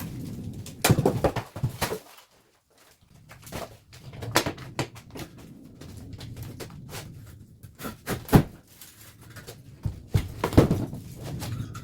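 Irregular knocks, clatters and scrapes, with a few louder hits spread through and a short silent gap about two seconds in.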